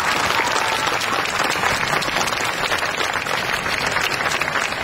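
Crowd applauding, many hands clapping at once in a dense, steady patter.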